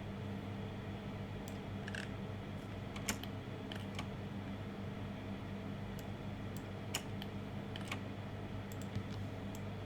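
Scattered clicks of a computer keyboard and mouse, a dozen or so at irregular intervals, over a steady low electrical hum.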